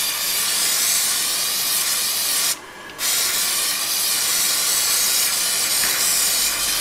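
Aerosol can of spray adhesive hissing steadily as it sprays, with one short pause about two and a half seconds in.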